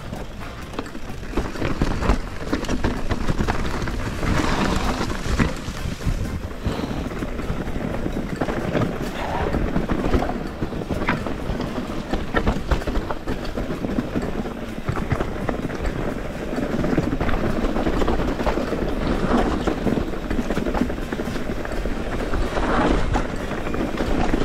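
Rocky Mountain Instinct mountain bike rolling over a rocky, leaf-strewn dirt trail: tyres crunching on stones and the bike rattling with many small knocks over the bumps, under a steady rumble of wind buffeting the action camera's microphone.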